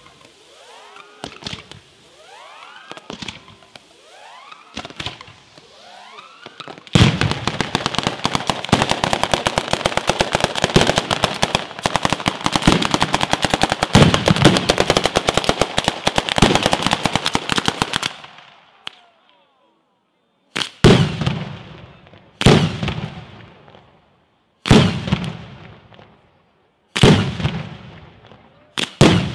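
Italian fireworks battery going off. First whistling, crackling effects with scattered pops. About seven seconds in, a dense, rapid-fire volley of firecracker bangs runs for about eleven seconds. After a short lull, five single heavy bangs come about every two seconds, each trailing off in an echo.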